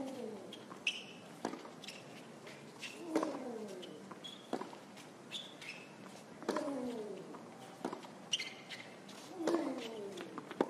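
Tennis rally on a hard court: racket strikes on the ball about every one and a half seconds, seven in all. After each of the near player's shots comes a short grunt falling in pitch, and short high sneaker squeaks sound between the shots.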